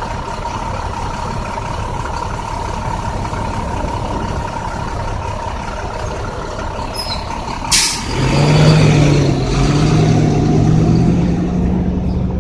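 A 2009 International bus, which has a bad misfire, running steadily. About eight seconds in there is a short sharp air-brake hiss, and then the engine gets louder with a strong low drone.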